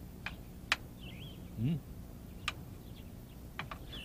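Go stones set down on a board: several sharp, separate clicks, two close together near the end. Faint bird chirps and one brief low hum from a man's voice are also heard.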